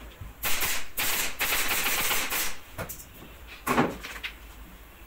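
Pneumatic upholstery staple gun firing staples in quick succession into the wooden headboard frame for about two seconds, then one more short burst about a second later.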